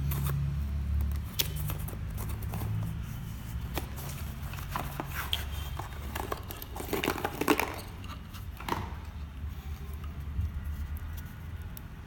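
A scattered run of sharp clicks, taps and crinkling, busiest in the middle, over a low steady hum.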